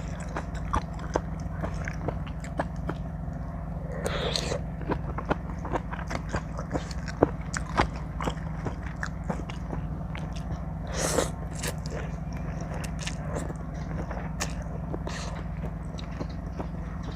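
Close-up chewing and biting sounds from someone eating spicy seafood papaya salad: many small crunchy, wet clicks, with two louder noisy bursts about four and eleven seconds in, over a steady low hum.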